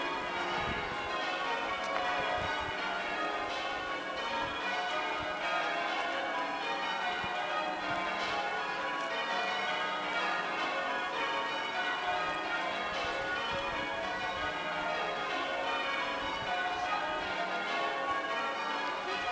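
A peal of church bells rung in changes: many bells struck one after another in a steady, unbroken stream, their tones overlapping.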